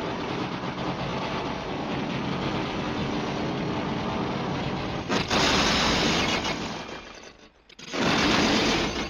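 Pitch-lowered, effects-distorted steam locomotive sound: a dense, rapid mechanical rattling chug. About five seconds in a louder rush of noise takes over and fades away, and another loud rush comes near the end.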